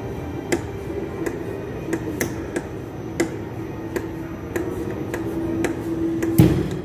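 Model seismic air gun being pumped up to pressure: a steady hum with irregular sharp clicks that grows louder, then the gun fires once with a loud, sudden blast about six seconds in.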